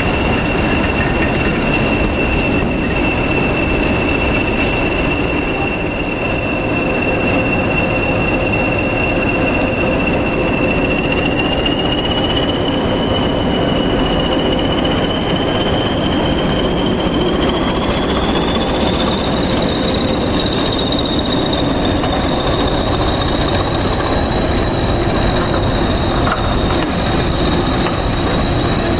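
Diesel-hauled passenger train pulling out and passing close by: a loud, steady rumble of engine and wheels, with a high whine that rises in pitch in two steps about halfway through as the train picks up speed.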